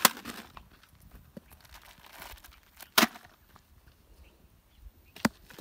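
Snack packets and a coconut dropped into a dug pit in dry ground: three sharp knocks, one at the start, one about three seconds in and one near the end. Light rustling and footsteps on dry dirt come between them.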